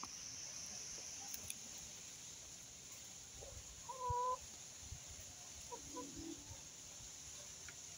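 Chickens in a farmyard, one giving a single short held call about four seconds in, with a few faint clucks after it.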